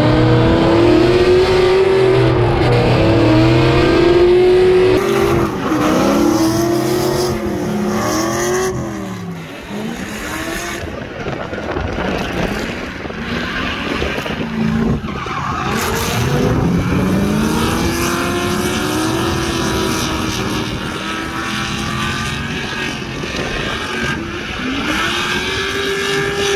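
Drift cars on track: engines revving up and down in repeated quick swings, with tyre squeal, easing off about nine seconds in and revving hard again from around sixteen seconds.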